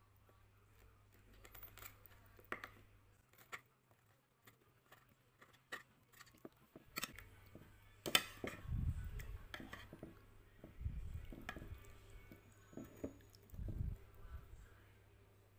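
Metal spoon stirring and scooping through soupy stew in a bowl: faint scattered clicks and clinks of the spoon against the dish, sharpest around the middle, with a few low dull bumps later on.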